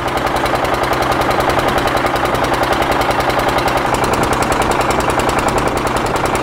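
Boat engine running steadily, a rapid, even knocking over a low hum.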